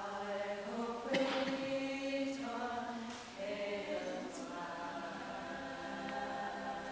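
Four women singing an American folk hymn unaccompanied in close harmony, holding slow sustained notes, with sung consonants hissing briefly about one and three seconds in.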